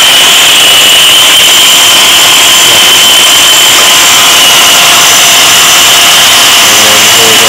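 Multiquip MP3 14-inch masonry wet saw running steadily at its constant speed, blade spinning free with no cut under way: a constant high whine over a steady rushing hum.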